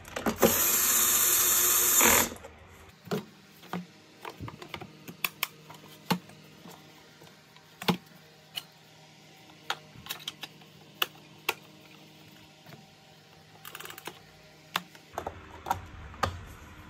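Cordless drill-driver runs for about two seconds, driving a Torx 15 screw into the plastic housing of a Bosch vacuum cleaner. Then comes a scattered series of sharp clicks and knocks as the plastic covers are fitted and snapped back into place, sped up to double speed.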